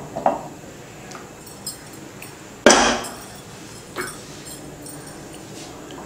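A pan and utensils knocking against a glass baking dish as thick halwa is tipped and scraped into it: a few light knocks and one loud clunk about two and a half seconds in.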